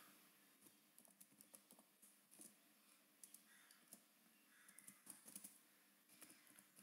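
Faint, irregular keystrokes of typing on a computer keyboard, with a small flurry of clicks about five seconds in.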